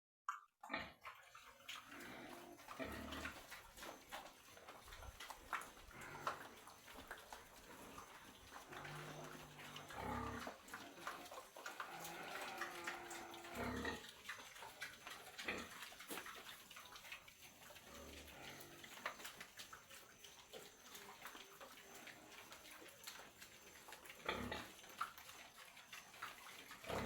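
Pigs grunting at intervals among scattered clicks and knocks.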